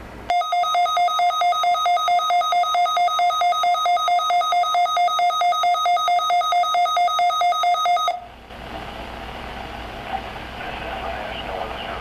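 Weather radio's built-in alert alarm: a loud, rapid electronic beeping, about five beeps a second, set off by a NOAA Required Weekly Test. It cuts off about eight seconds in, leaving the radio's hissy broadcast audio.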